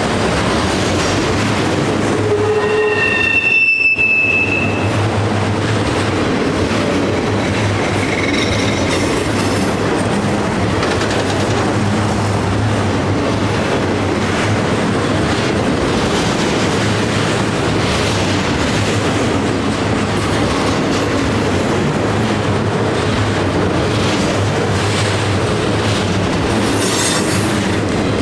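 Freight train of autorack cars rolling past close by: a steady rumble of steel wheels on rail. High wheel squeal sounds at several pitches from about two to four and a half seconds in, and again briefly, more faintly, about eight seconds in.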